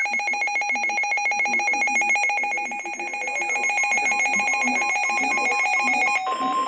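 Weather radio alert tone sounding for an incoming warning: a loud, rapidly pulsing electronic alarm on steady pitches. About six seconds in it switches abruptly to a different steady tone.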